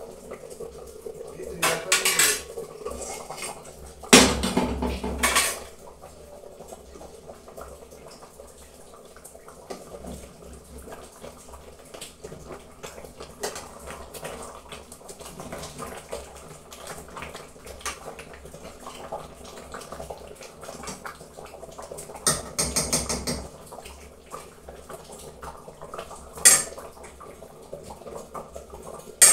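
Metal cookware clattering: a glass pot lid with a steel rim is lifted off a stainless-steel pot and set down, and a metal ladle clinks and scrapes against the pot as the soup is stirred. The loudest clatters come a few seconds in, with more in the second half and a sharp clink near the end.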